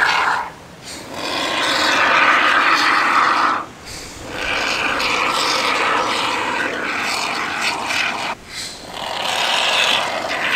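Aerosol can of Gaps & Cracks expanding spray foam spraying in long hissing bursts, with brief breaks about a second in, near four seconds and after eight seconds, as foam is worked into holes along the van's side step.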